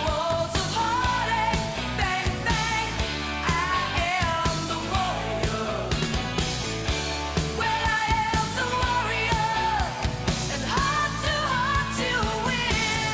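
Pop-rock song with a sung vocal over a steady beat and bass guitar.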